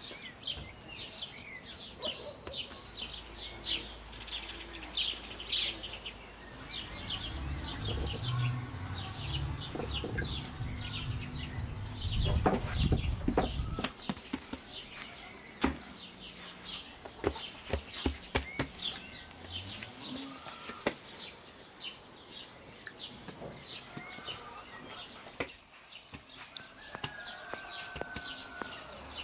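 Birds chirping steadily in quick short notes. A low buffeting rumble with rustling runs through the first half, and scattered sharp taps and knocks come mostly in the middle.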